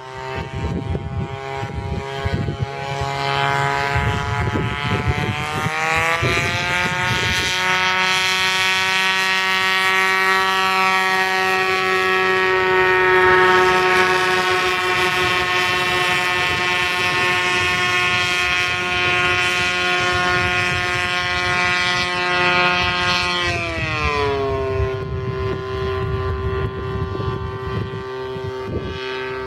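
Engine spinning up a heavy, over-loaded propeller: the pitch rises over the first several seconds to a steady high speed, then drops about 24 seconds in and holds at a lower steady speed.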